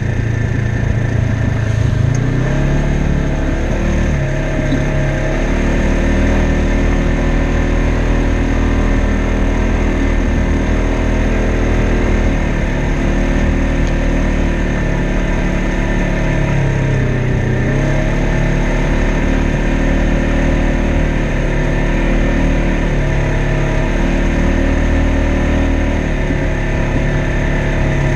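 Polaris RZR XP 1000 side-by-side's parallel-twin engine running under way on a dirt trail, its revs dropping and climbing again several times as it eases off and picks back up.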